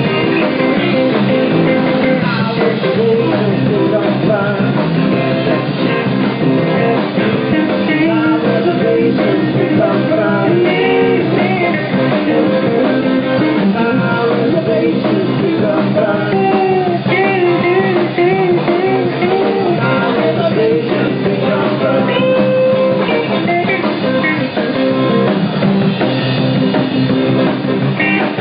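A live rock band playing loudly: electric guitars, bass guitar and a drum kit.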